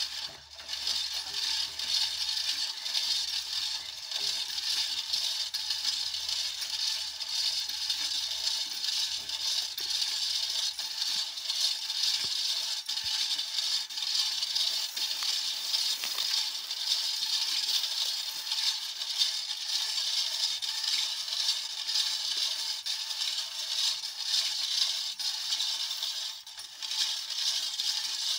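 A bicycle on a stand pedalled hard, its rear wheel driving a rope belt to a tube-well pump: a steady rattling, scraping whir of chain, wheel and belt that eases briefly near the end.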